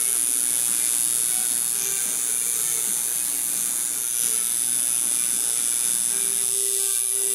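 Electric tattoo machine buzzing steadily while its needle works colour into the skin of a forearm.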